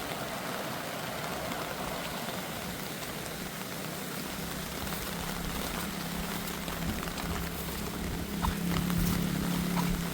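Steady rushing water noise from the flooded river, with a low steady hum that grows louder in the second half.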